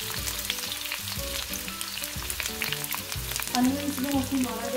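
Sliced red onions sizzling in hot oil in a wok, a steady dense crackle.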